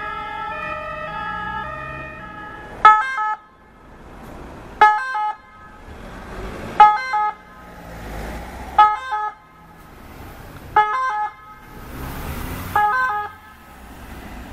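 French ambulance two-tone siren: a steady alternating two-note siren fades away over the first couple of seconds. Then a second ambulance's siren sounds in short, loud two-note blasts, about one every two seconds, six in all.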